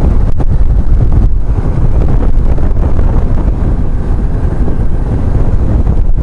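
Heavy wind rushing and buffeting over the microphone of a moving BMW R1150GS motorcycle at road speed, with the bike's running noise mixed underneath.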